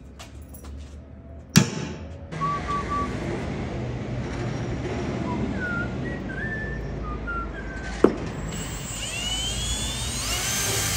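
A sharp strike about one and a half seconds in, then a cordless drill boring a rosette hole into a steel motorcycle frame tube. The bit squeals as it cuts, with wavering whistles and a rising whine near the end, and there is another sharp knock partway through.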